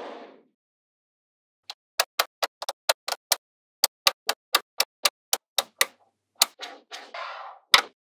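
Small neodymium magnetic balls snapping into place one at a time as a flat pattern is built, a run of sharp clicks at about three a second. A brief soft scrape at the very start and a softer rustling rattle near the end.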